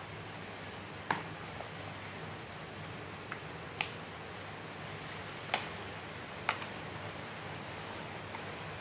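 Metal spoon and fork tossing a leafy salad in a plastic bowl: soft rustling of the leaves with about six scattered sharp clicks as the utensils knock together and against the bowl.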